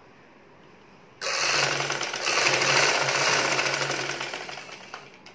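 Vidya sewing machine stitching through fabric: it starts abruptly about a second in, runs fast with a rapid, even rattle of needle strokes over a steady hum, then slows and stops near the end.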